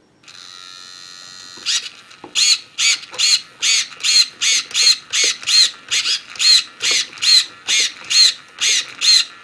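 RC car steering servo chattering: short, high-pitched whines that rise and fall in pitch and repeat evenly a little over twice a second, over a steady hiss that starts a moment earlier. The owner takes the twitching for a faulty receiver glitching the servo.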